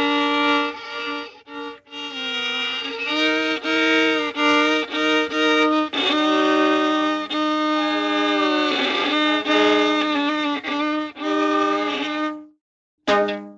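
Violin playing a short melodic phrase, with some notes sliding in pitch and sometimes two notes sounding together. It stops about twelve and a half seconds in, and a brief note follows near the end.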